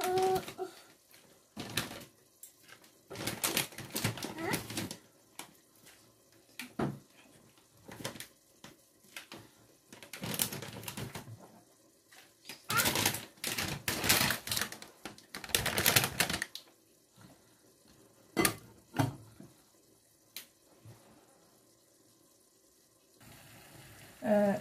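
Dry pasta dropped by hand into a stainless steel pot of water, in short irregular bursts of clatter and rustle with a few single clicks. Near the end a faint steady sizzle of simmering tomato sauce comes in.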